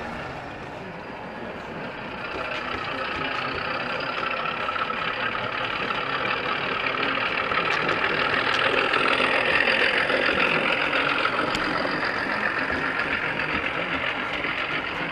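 Model trains running on the layout track, a steady rolling rumble of wheels on rails that grows louder toward the middle as a train passes close, then eases. Faint voices in the room underneath.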